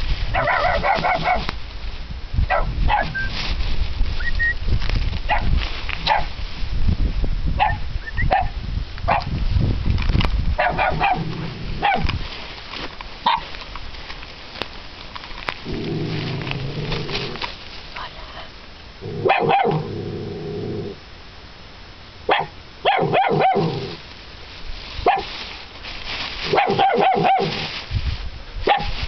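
Dogs barking and yelping in short, scattered calls, with a few longer, lower calls about two-thirds of the way through. A heavy low rumble on the microphone fills the first half.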